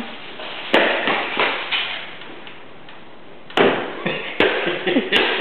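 Scattered light knocks and taps: one a little under a second in, then several more in the last two seconds, with quiet room noise between.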